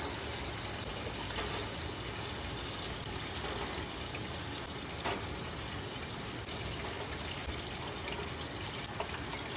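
Hot oil in a deep pot frying chicken, a steady sizzling hiss, with a few faint clicks from metal tongs as the fried pieces are set on a wire cooling rack.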